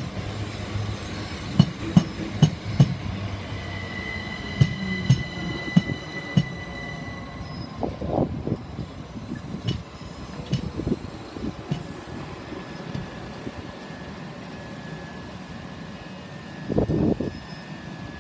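Pair of Class 375 Electrostar electric trains at the platform: a run of sharp clunks and knocks with a low hum in the first few seconds, then held high tones and a quieter steady running sound.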